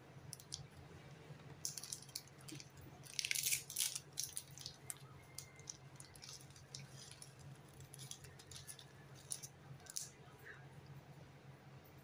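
Crinkling and crackling of a plastic snack wrapper being handled and opened by hand, in quick irregular crackles with a louder burst a little past three seconds in.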